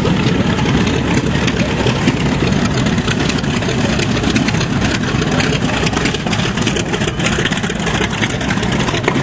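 Piston engines of a World War II twin-engine bomber running at low power as it taxis past. A steady, rough, low engine drone throughout.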